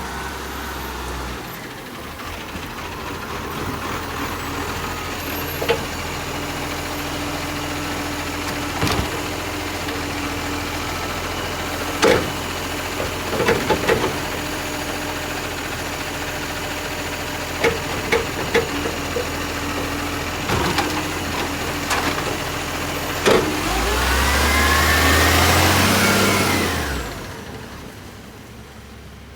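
Garbage truck engine running steadily, with several sharp metallic clanks through the middle. Near the end the engine revs up for about three seconds with a rising whine, then falls away.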